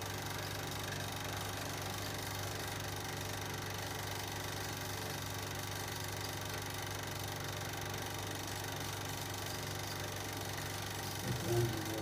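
Cine film projector running with a steady motor hum. A brief louder sound comes near the end.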